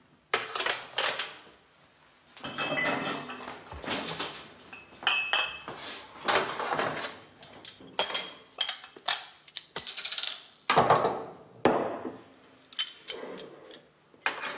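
Glasses, bottles and dishes clinking and clattering as they are handled: an irregular string of knocks and scrapes, some with a short ringing tone.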